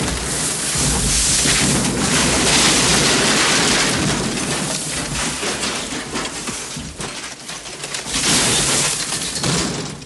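Airplane crash sound effect: a loud, dense crashing rumble with debris clattering and crackling through it. It swells again about eight seconds in, then dies away near the end.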